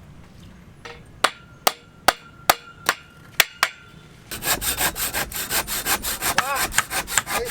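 Hand tools on a building site: about seven sharp, evenly spaced strikes with a ringing note, then rapid, continuous scraping or sawing strokes from about halfway through.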